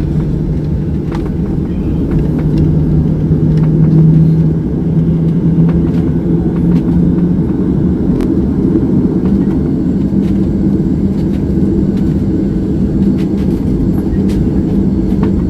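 Airliner cabin noise: a loud, steady engine and airflow rumble inside the passenger cabin, with a low hum that shifts up in pitch about halfway through.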